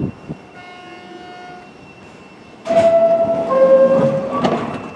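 Bombardier R62A subway car's door chime: two steady electronic tones, the first higher and the second lower, starting about halfway through, as the doors close with a knock near the end.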